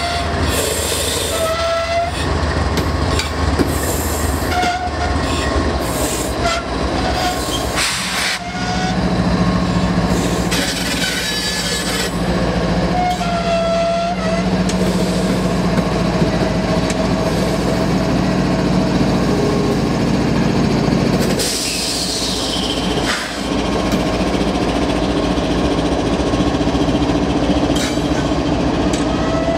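Slow-moving train rolling past close by, with diesel locomotives (a GE ES44AC, then an EMD F7) rumbling under a steady low engine hum. Wheel flanges squeal in short high tones every few seconds over the rumble of wheels on rail.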